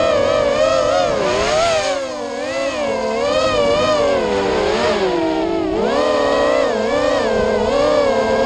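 Racing quadcopter's electric motors whining, several tones at once, their pitch rising and falling constantly with the throttle as it swoops through the turns.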